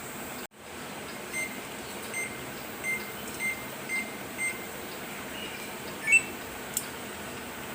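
Washing machine control panel beeping as its buttons are pressed to set a wash: six short beeps about half a second apart, then a louder brief rising chirp near the end, over a steady background hiss.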